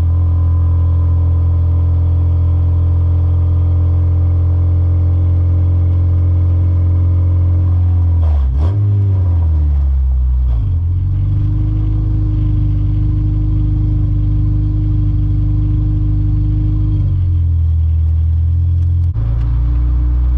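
Engine of a K24-swapped Acura Integra, a 2.4-litre four-cylinder, droning inside the cabin while driving. The engine note wavers about eight to ten seconds in, holds at a higher pitch for several seconds, then drops back near the end.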